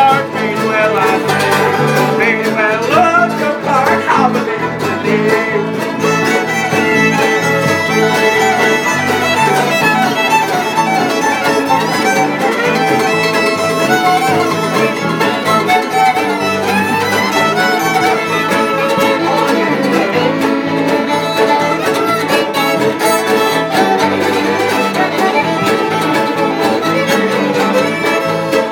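Bluegrass-style band music in an instrumental passage without vocals: a fiddle carries the lead over strummed guitar.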